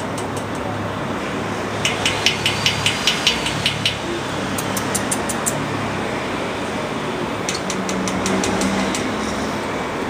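Steady outdoor urban background noise with a low hum. About two seconds in comes a run of sharp ticking clicks, about four a second, with shorter runs of clicks later.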